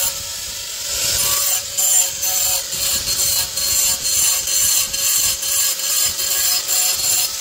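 Hand-held electric grinder running against a granite stair step, roughening a strip to make it anti-skid: a steady motor whine with a grinding rasp that swells and eases about twice a second as the tool is worked back and forth.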